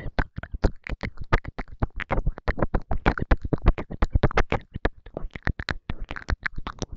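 Wet mouth sounds: a rapid, steady stream of tongue and lip clicks and smacks, several a second.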